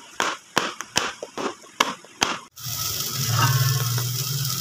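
A quick, irregular run of sharp knocks from a metal cake tin being handled and tapped on the counter. About two and a half seconds in, this gives way suddenly to a steady hiss with a low hum.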